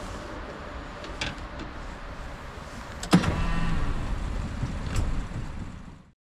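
Wind rumbling on the microphone in an open boat. About three seconds in comes a sudden loud mechanical whine with a rattle, which then dies away.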